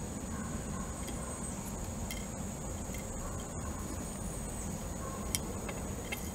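A steady high-pitched background whine, with a few faint clicks of shell being picked off a boiled duck egg.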